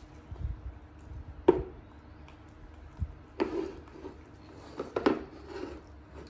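A few sharp knocks and clatters of a plate being handled on a wooden floor, the loudest about a second and a half in, with more around three and a half and five seconds in, over a faint steady hum.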